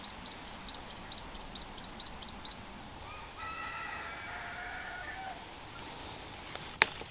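A small bird calling a fast run of about a dozen high, sharp chirps, about five a second. Then a rooster crows faintly for about two seconds. A single sharp click comes near the end.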